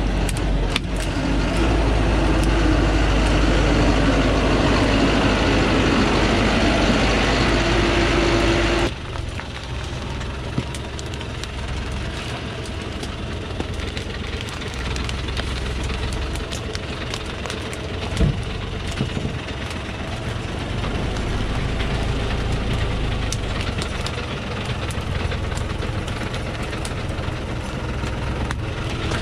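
Diesel engine of a Thaco Forland FD950 truck running steadily. It is louder for about the first nine seconds, then drops suddenly to a lower steady running sound, with a single sharp knock about eighteen seconds in.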